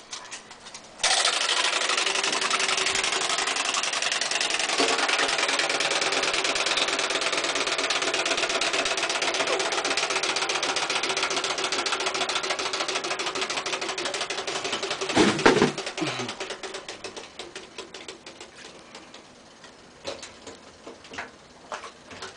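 Clockwork motor of a wind-up swimming frog bath toy buzzing as it paddles through shallow water in a bathtub: a fast, steady whirr that starts about a second in. Around fifteen seconds it flares briefly louder, then dies away as the spring runs down. Faint splashes and taps near the end.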